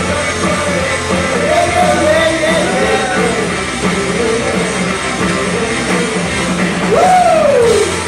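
Live rock band playing with a singer over loud guitar and drums. About seven seconds in, a long note sweeps up and back down.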